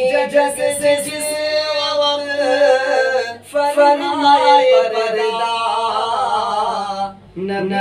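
A man singing a naat unaccompanied, his voice holding long, wavering notes. Two sung phrases, with a short break for breath about three seconds in and another near the end.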